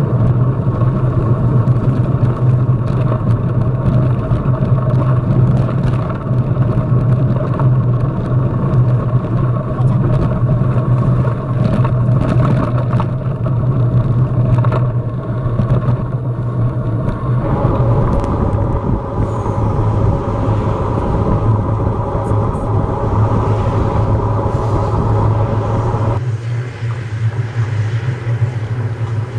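Wind rushing over a bike-mounted camera's microphone, with tyre rumble from a mountain bike rolling down a road at speed. The sound is loud and steady, and its character changes abruptly twice, about two-thirds in and again near the end.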